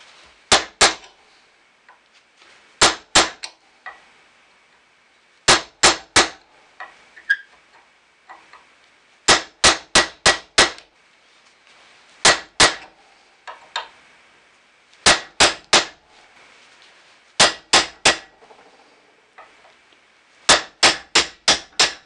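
Hammer striking a steel punch to drive a knurled pin out of a cast steel car door hinge held in a vise. Sharp metallic blows come in quick groups of three to six, with pauses of two or three seconds between the groups.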